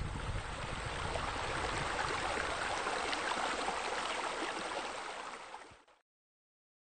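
Steady rushing noise of running water, an ambient sound effect laid under the animation; it fades out near the end and stops.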